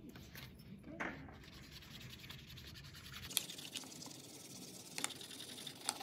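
Felt-tip markers scribbling across paper plates: a soft, scratchy rubbing, with a few light clicks in the second half.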